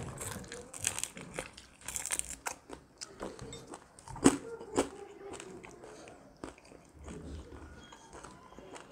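Two people biting and chewing oven-roasted chicken wings and leg pieces, close to the microphone: crisp skin crunching and wet mouth sounds in irregular clicks, the sharpest a pair about four and five seconds in.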